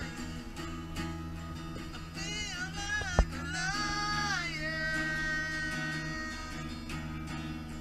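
Live acoustic band music: acoustic guitar and bass guitar playing, with a high melodic line that bends in pitch in the middle. There is one sharp drum hit about three seconds in.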